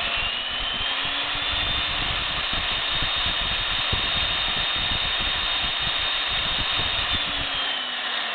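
Milwaukee 4210-1 magnetic drill press motor running in reverse: its whine rises in pitch as the speed dial is turned up, holds steady at high speed, then starts to fall near the end as the speed is turned back down.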